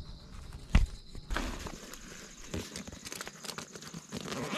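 A single sharp knock about a second in, then steady rustling and crinkling of a fabric backpack and cloth being handled and packed over dry grass.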